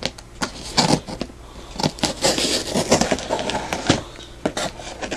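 Hands handling a cardboard shipping box: scattered taps, knocks and scrapes on the cardboard, with crackling of packing tape or plastic wrap.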